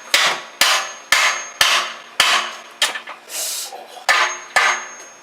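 Hammer blows driving solid subframe bushings into a car's rear subframe, struck about twice a second with a brief pause about three seconds in. Some of the strikes leave a short metallic ring.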